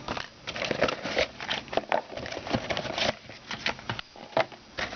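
A sealed trading-card hobby box being pulled and torn open by hand: a fast run of crackling, scraping and rustling with sharp clicks.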